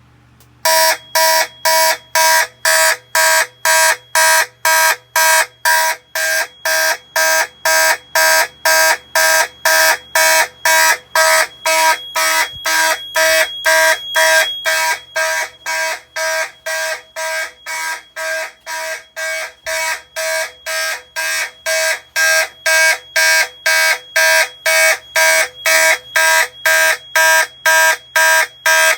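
Fire alarm system horns sounding in a test, a loud pulsing signal at about two blasts a second that starts just under a second in and keeps an even beat.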